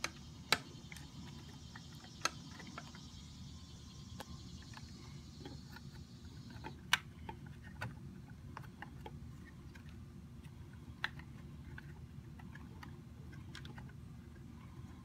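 Scattered small clicks and taps of plastic wire-harness connectors and wires knocking against a hoverboard's frame and circuit board as the power harness is pushed through its chamber, a few sharper than the rest, over a steady low hum.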